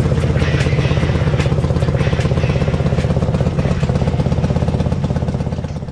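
Dnepr motorcycle's flat-twin engine idling steadily, warming up after being brought back to life from more than a year of standing. The sound fades out near the end.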